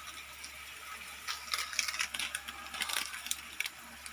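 Mussel shells clicking and rattling against one another and the steel pan as they sauté, over a faint steady sizzle. The clicks are scattered and cluster about a second in and again near three seconds.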